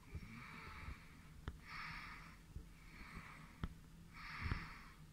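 A person breathing close to the microphone, soft breaths about every second and a half, with a few sharp clicks in between.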